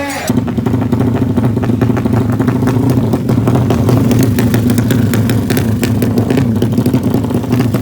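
A tuned drag-racing motorcycle engine running loud and steady at one speed, with a rough, ticking edge.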